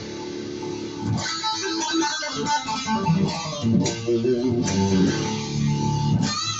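Guitar music with plucked notes.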